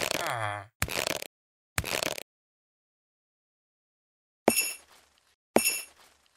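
Cartoon sound effects: a short wavering-pitch sound and two quick hits, then after a pause of about two seconds three sharp, ringing clinks about a second apart.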